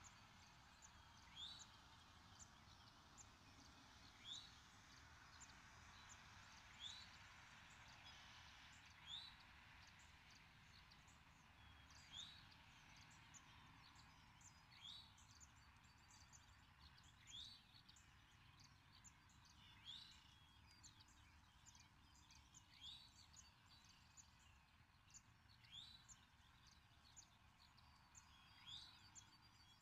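Faint wild birdsong: one bird repeats a short rising note about every two and a half to three seconds, while other small birds chirp softly, over a quiet outdoor hush.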